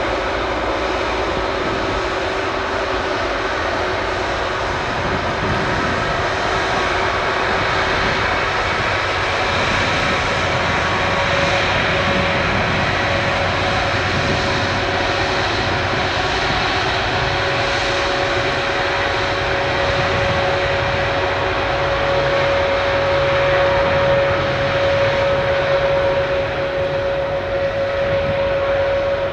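Airbus Beluga XL's twin Rolls-Royce Trent 700 turbofans running at taxi power as the aircraft rolls along the runway: a steady jet rumble with a whining tone. A higher whine comes in about ten seconds in, and the sound grows a little louder toward the end.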